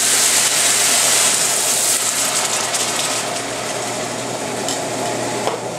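Beer poured from a bottle into a hot pan of seared chicken, hissing and sizzling loudly as it hits the hot metal. The hiss slowly dies down over the last few seconds as the liquid heats.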